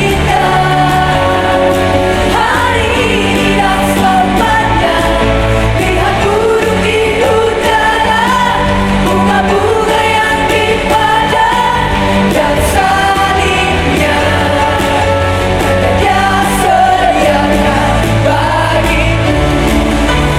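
Worship band and singers performing a contemporary praise song: sung vocals over steady chords and bass.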